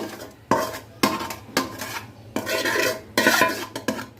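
Spoon scraping and clinking against cookware in about five short strokes, as the spiced marinade water is scooped into the karahi with the chicken.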